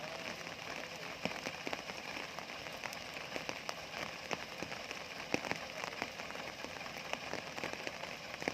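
Rain falling: a steady hiss with scattered sharp ticks of individual drops.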